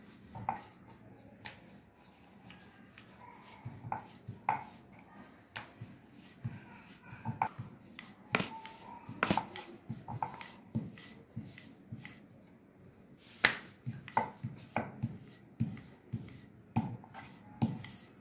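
A wooden rolling pin rolling out naan dough on a round rolling board (chakla), with irregular sharp clacks of pin against board as it is pushed back and forth.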